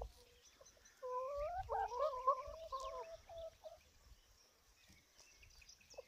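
Domestic hen giving a drawn-out, wavering call, a string of rising notes lasting about two and a half seconds, starting about a second in.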